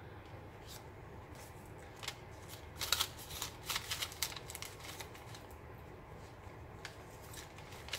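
Soft paper rustles and flicks as the thick pages of a handmade paper journal are turned and its paper tags handled, most of them bunched together in the middle.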